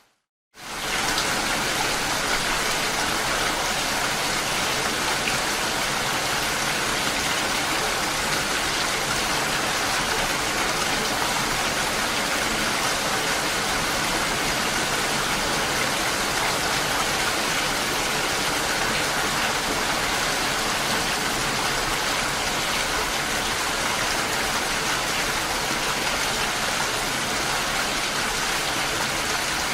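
Steady rain falling, an even hiss with no breaks. The sound cuts out for a moment at the very start and fades back in within the first second.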